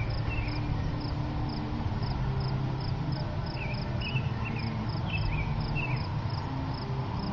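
A cricket chirping in an even, regular rhythm, with a songbird calling briefly a few times, over a steady low background rumble.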